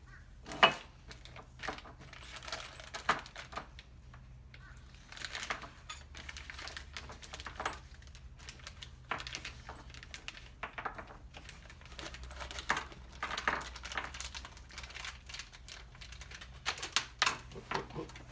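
Irregular clicks, clinks and rattles of small metal parts and tools being handled during shifter cable bracket work on a transmission, with a sharper knock about half a second in and a cluster near the end. A faint steady low hum runs underneath.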